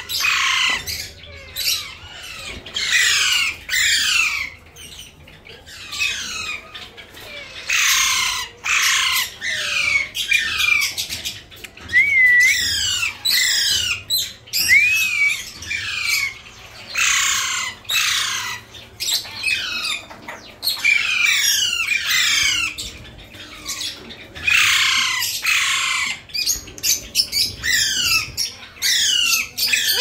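Alexandrine parakeets squawking: harsh calls, each falling in pitch, repeated over and over, with two clearer whistled notes about halfway through.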